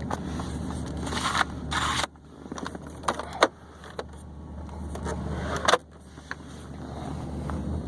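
Maserati GranTurismo S's 4.7-litre V8 idling steadily, heard from inside the cabin, with several sharp plastic clicks and handling knocks over it.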